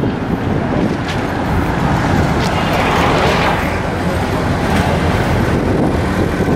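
Steady road traffic on a busy street: engines and tyres running continuously, growing louder for a moment about three seconds in as something passes close.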